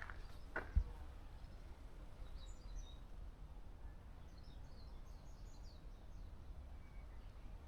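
Small birds chirping faintly in short, high calls through the middle, over a steady low rumble. Near the start, one sharp thump of a footstep.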